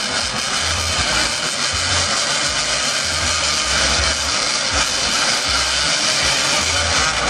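Many small motorcycle engines revving together at a race start line, a dense, steady buzzing din. Under it, a low thump repeats about once a second.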